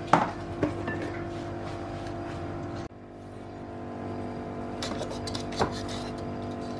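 A steady mechanical hum runs throughout, with a few sharp clinks of a metal spoon against a cocoa tin: two near the start and a couple more about five seconds in. The hum cuts out abruptly about three seconds in and builds back up.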